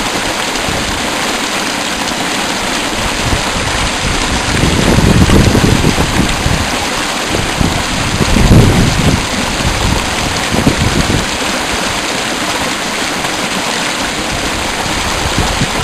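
River water rushing: a loud, steady hiss of flowing water, with a few low rumbling swells about five and eight and a half seconds in.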